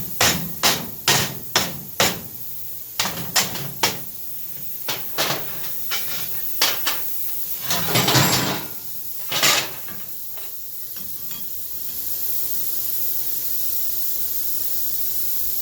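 Hammer blows on steel, a run of sharp irregular knocks, some in quick pairs, thinning out after about ten seconds, over a steady hiss that gets a little louder from about twelve seconds in.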